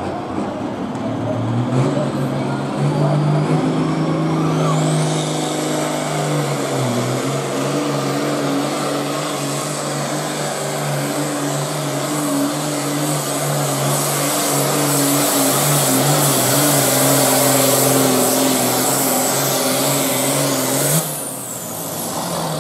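Diesel pulling tractor at full throttle, dragging a weight-transfer sled: a loud, steady engine drone under load with a high whistle that climbs about four seconds in and holds. Near the end the engine note drops off suddenly and the whistle winds down as the run ends.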